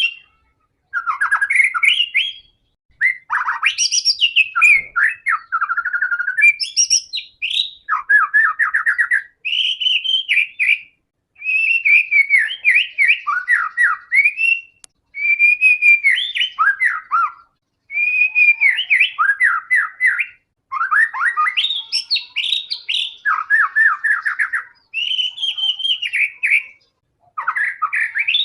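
White-rumped shama singing in full, continuous song: a long run of varied whistled phrases, rapid trills and pitch glides, each a second or two long, with short pauses between.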